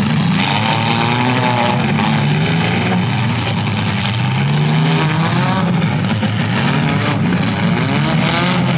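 Several compact-car engines running and revving together in a demolition derby, their pitches rising and falling as the drivers work the throttles.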